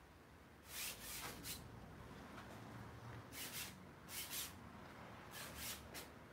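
A paintbrush rubbing across a stretched canvas in a series of short, faint swishing strokes as lines are sketched.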